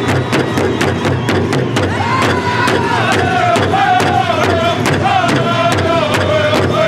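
Powwow drum and singers: a drum beaten in a steady, even pulse under high-pitched group singing. The singing grows stronger about two seconds in.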